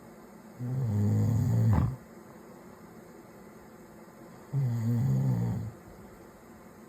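A man snoring: two low, buzzing snores about four seconds apart, each lasting a little over a second.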